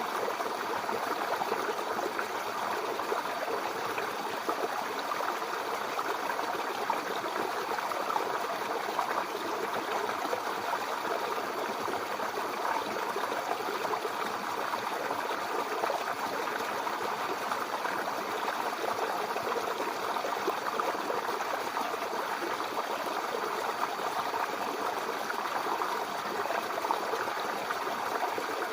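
Babbling brook: shallow water running and splashing over stones in a steady, unbroken stream.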